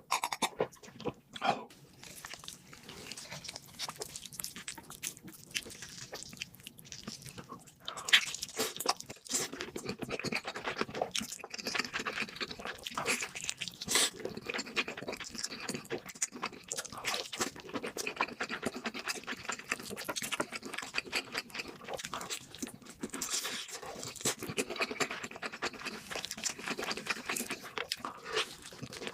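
Close-up eating sounds: crunchy fried food being bitten and chewed, with a steady run of irregular crackly crunches and wet chewing.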